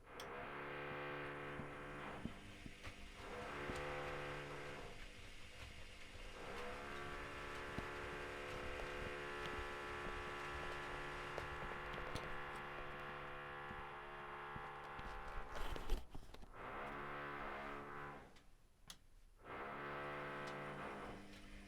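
Privileg Classic 30612 washing machine's drum motor whining at a steady pitch as it tumbles the wash in runs with short pauses between them. There is a sharp clunk about sixteen seconds in.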